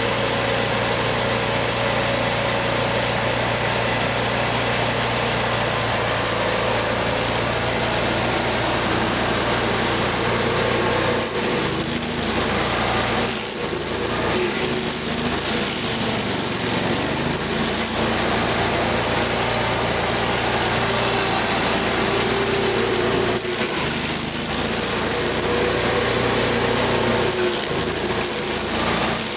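LASKI F500H stump grinder's engine running steadily. About eleven seconds in its note starts to dip and waver under load as the cutting wheel grinds into an ash stump.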